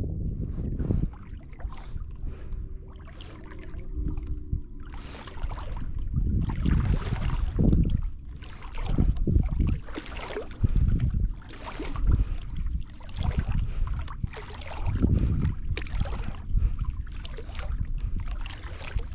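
Small wooden canoe moving through calm lake water: water sloshing and splashing around the hull in uneven low surges every second or two, with wind rumbling on the microphone.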